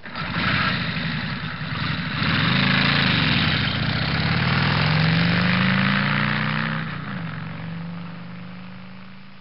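A motor-vehicle engine running and revving: its pitch climbs twice, drops about seven seconds in, then holds steady as the sound fades out.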